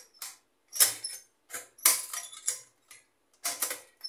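IMUSA rice cooker being handled: a string of sharp, irregular clicks and light metallic clatters as its front cook switch lever is worked and the stainless steel body shifts on the bench, engaging the cook setting after its switch contacts were cleaned.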